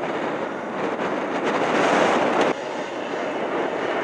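Hard enduro dirt bike engine revving at a distance as it works up a rocky hill, a rough, even noise that grows louder and then drops off suddenly about two and a half seconds in.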